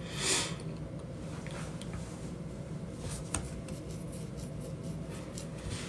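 Quiet room tone picked up by a phone microphone, with a soft breath just after the start and a few faint clicks and rustles of handling, the clearest about three seconds in.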